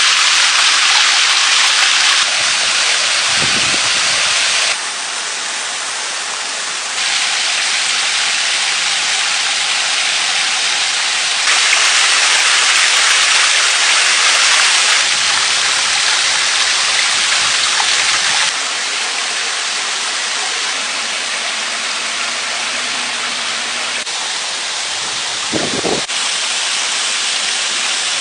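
Shallow rocky stream rushing steadily, a continuous hiss of flowing water whose loudness jumps up or down several times.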